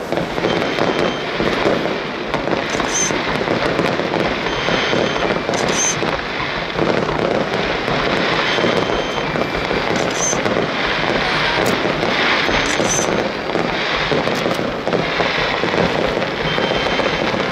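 Aerial fireworks display: shells bursting and crackling without a break, with many sharp cracks running together at a steady loudness.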